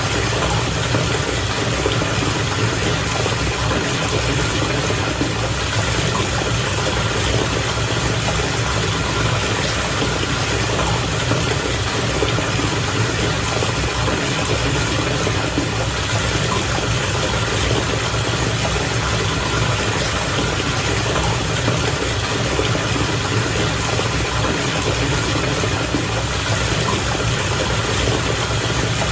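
Bath water bubbling steadily, with a continuous low rumble underneath.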